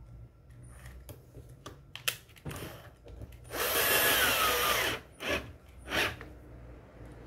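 Electric screwdriver driving screws to fasten the speaker into the subwoofer box: one run of about a second and a half, then two short bursts, with small clicks and knocks of handling around them.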